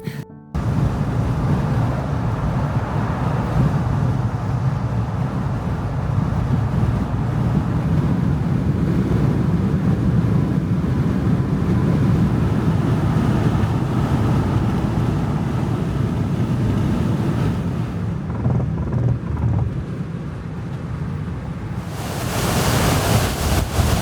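Strong wind buffeting the microphone over the steady rush of ocean surf. About 22 seconds in, it switches to a brighter, hissing rush of breaking waves.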